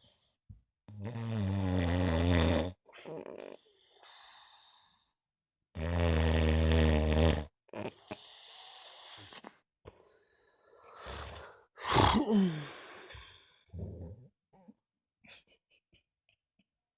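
Heavy snoring from a sleeper. There are two long, loud snores with a low buzz, each followed by a quieter breathy sound. Then comes a shorter snore that falls in pitch, and a few faint clicks near the end.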